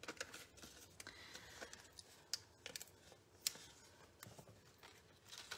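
Faint handling of a sheet of adhesive foam squares: light paper rustling with scattered small clicks, the sharpest two a little past two seconds in and about three and a half seconds in.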